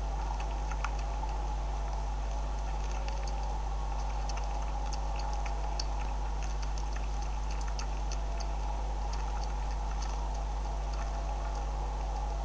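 Beavers chewing dry corn and seed feed: many small, irregular crunching clicks over a steady low electrical hum.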